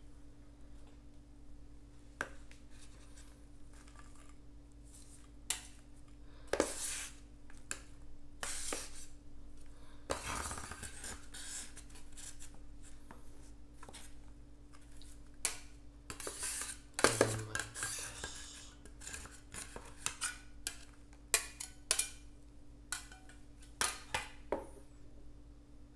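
Metal spatulas scraping and tapping on the cold metal plate of an ice cream roll maker, gathering crumbly frozen ice cream that would not roll. Irregular scrapes and clinks, the loudest a little past the middle, over a faint steady low hum.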